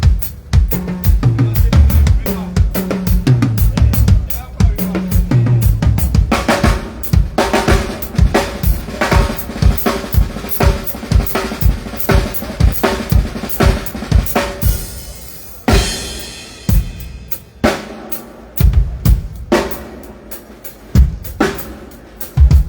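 Drum kit played in a sound check: a steady run of kick, snare and tom hits, with deep pitched drum notes in the first few seconds. A cymbal wash comes about two-thirds of the way in, followed by sparser, spaced-out hits.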